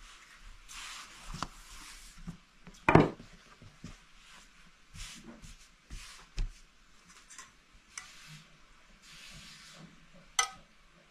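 Hands brushing and sliding over a thin sheet of rolled-out dough and the cloth beneath it, in soft strokes. About three seconds in, a loud wooden knock as the rolling pin is put down, with a few lighter knocks later. Near the end, a sharp clink of a metal spoon against an enamel bowl.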